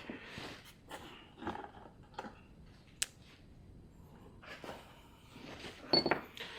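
Metal parts of an ATV axle's CV joint and hand tools being handled: scattered clinks and rustling, a sharp click about three seconds in and a louder metallic clatter with a brief ring near the end.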